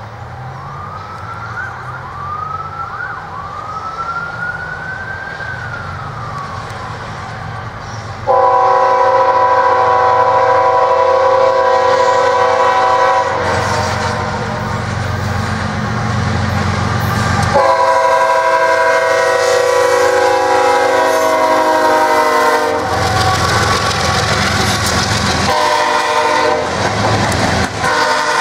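GE ES44AC diesel locomotives approaching with engines rumbling, a few high rising squeals near the start. From about eight seconds the lead unit's air horn sounds a multi-note chord: two long blasts, a short one, and the start of another long one, the pattern of the grade-crossing warning signal.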